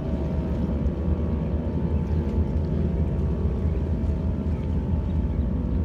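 T128 outdoor warning siren on a growl test: the rotor turning at low speed, giving a steady low growl with faint steady tones above it, never winding up to full pitch.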